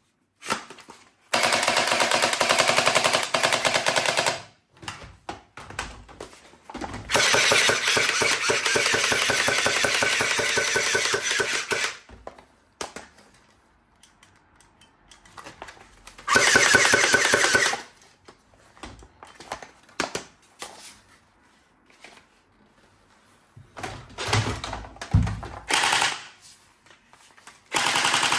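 Toy machine gun firing in long, rapid rattling bursts: four bursts, the longest about five seconds, with quieter clicks and handling knocks between them.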